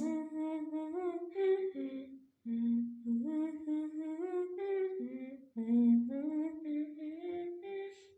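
A high voice humming a wordless tune in short phrases of held notes that step upward, with brief pauses about two and a half and five and a half seconds in.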